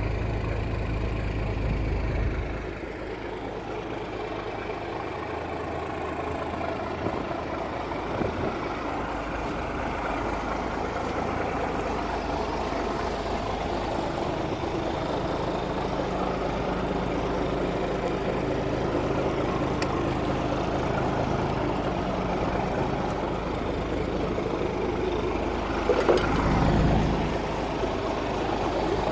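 An engine idling steadily, with a brief louder surge near the end.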